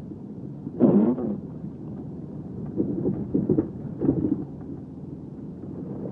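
Low, steady rumble inside the cabin of a 1998 Subaru Legacy Outback driving through snow, with a louder jolt about a second in and several more a few seconds later.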